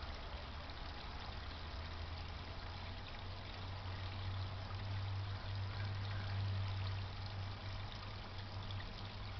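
Steady trickling and splashing of water from a garden pond pump, with a low steady hum underneath that swells in the middle and fades again.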